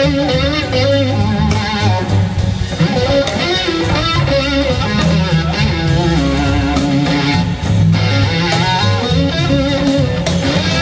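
Live blues-rock band playing, with electric guitar to the fore over bass guitar and drums.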